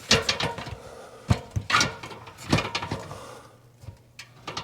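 A series of sharp clicks and knocks at irregular spacing, with quieter rustling between: hands working on a security camera and its cable while connecting it to power.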